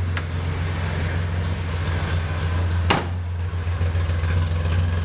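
Datsun 240Z's straight-six engine idling steadily, with one sharp bang about three seconds in.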